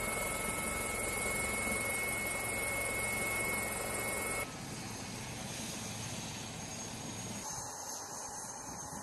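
AgustaWestland AW159 Wildcat helicopter running: loud steady rotor and turbine noise heard from inside the open cabin in flight, with two thin steady whines. About four and a half seconds in it cuts to a quieter steady running sound with a thin high whine.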